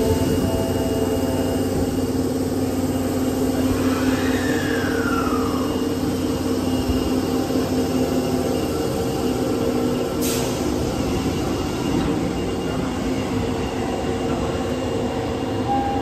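Osaka Metro 22 series subway train pulling out of an underground station: a steady running noise with a constant hum. A short falling tone comes about four seconds in.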